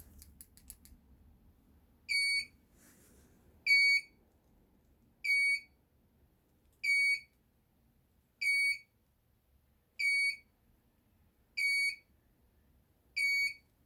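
Ador power sliding door controller's buzzer beeping repeatedly in its width-adjustment programming mode: eight short, high-pitched beeps at a steady pace of about one every second and a half.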